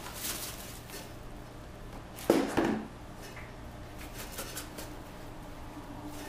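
Dry whole hop cones pouring from a plastic tub into a nylon mesh bag in a stainless brew kettle, a soft rustling, with two sharp clatters a little over two seconds in.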